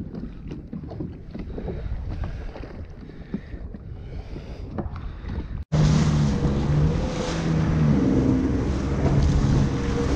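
Low wind rumble with scattered light knocks. After an abrupt cut about halfway through, a Yamaha VX Deluxe jet ski's engine running under way at speed, its note shifting up and down, with hull spray and wind noise on the microphone.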